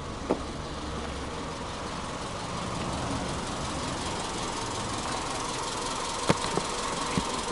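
Subaru Legacy Touring Wagon 2.0i B-Sport's EJ20 flat-four engine idling steadily. A few sharp clicks come near the end.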